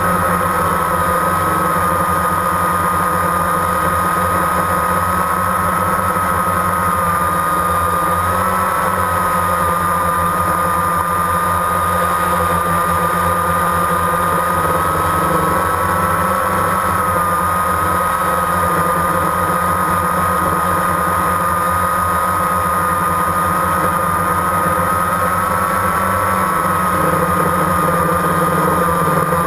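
Multirotor drone's electric motors and propellers whining steadily in flight, picked up by its onboard camera: a high whine that wavers slightly in pitch, over a steady low hum.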